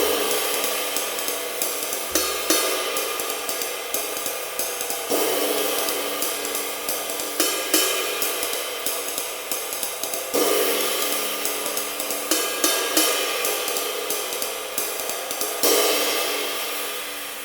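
Cymbal played with a drumstick in a steady jazz swing ride pattern, the stick moving between different zones of the cymbal so that the tone and colour shift every few seconds. Louder accent strokes fall about every two and a half seconds, and the cymbal is left to ring and fade near the end.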